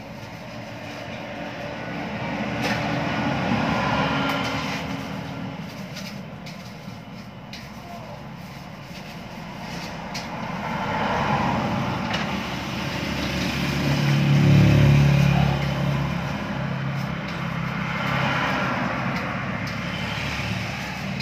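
Motor vehicles passing one after another, each rising and fading over a few seconds; the loudest, a heavier engine, goes by about two-thirds of the way through.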